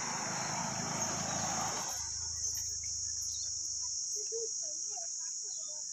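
Steady high-pitched insect chorus, like crickets. Under it, a coarse rustling hiss stops abruptly about two seconds in, and faint short chirps come near the end.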